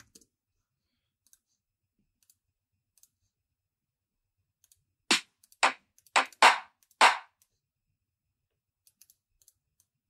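Five short, dry clap samples played one after another over about two seconds, as one-shots are previewed from a sample library. Faint computer mouse clicks otherwise.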